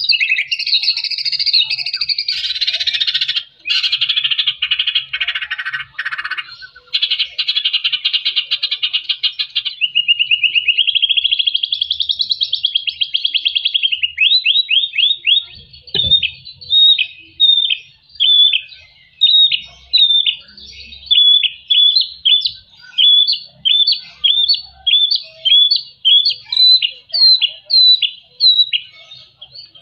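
White-rumped shama (murai batu) singing: a dense, fast, harsh rattling trill for about the first ten seconds, then a rising and falling warble, then a long run of short repeated whistled notes, about two a second.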